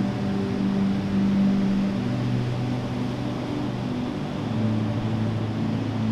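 Ambient background music: sustained low chords that change about two seconds in and again past the middle, over a soft hiss.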